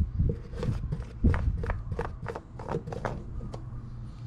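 Oil filler cap being unscrewed by hand and lifted off the engine's valve cover: a run of small clicks and scrapes, with two dull thumps, one just after the start and one about a second and a quarter in, over a low steady hum.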